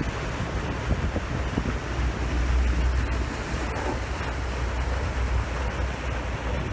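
Wind buffeting the microphone over the steady low rumble of a boat's engine and water rushing past the hull.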